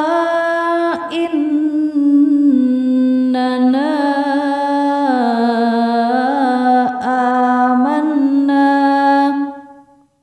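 A single voice chanting Quranic Arabic in drawn-out melodic recitation, holding long notes that step up and down in pitch. There are short breaks about a second in and near seven seconds, and the voice fades out near the end.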